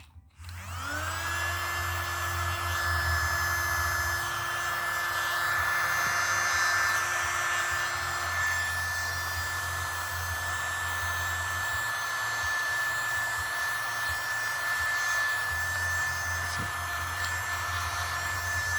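Mini USB keyboard vacuum cleaner's small motor spinning up, its whine rising in pitch right after it is plugged into the USB port, then running steadily with a high whine over a hiss of airflow.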